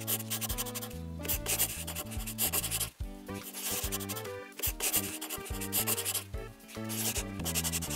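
Felt-tip marker rubbing across paper in several long outlining strokes with short breaks between them, over background music.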